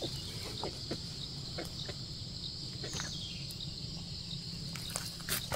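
Steady high insect chirring, with scattered soft crackles and rustles of dry pine needles and leaves being shifted on the ground.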